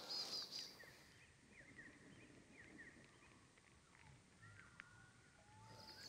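Faint birdsong outdoors: scattered short chirps, with a couple of longer whistled notes near the end.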